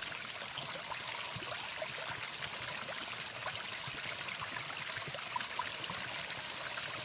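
Steady rushing of running water, like a small stream, with faint scattered ticks.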